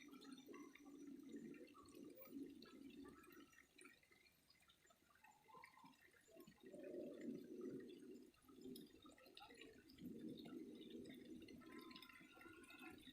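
Faint trickling and dripping of running water, coming and going in surges.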